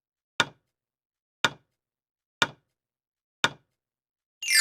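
Countdown timer ticking once a second, four sharp ticks, then a bright ding chime starts just before the end, marking that time is up.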